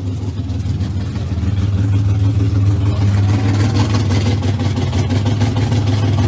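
A vehicle engine running at a steady speed, a low drone that grows louder over the first three seconds and then holds.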